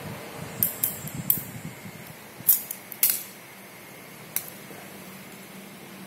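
Sharp clicks and snips of a hand cable stripper cutting the outer jacket of a Cat 6 UTP LAN cable: a cluster of clicks in the first three seconds, then one more about four seconds in.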